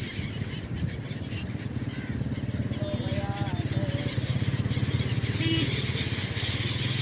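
A motor engine running steadily with a fast, even low throb.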